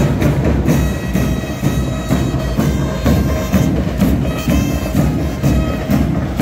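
A school marching band playing: drums keep a steady march beat of about two strokes a second under held wind-instrument notes.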